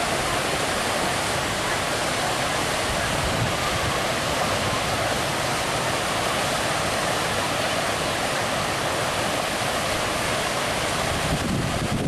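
Steady rush of a waterfall and the small cascades below it pouring over rock ledges into a shallow pool.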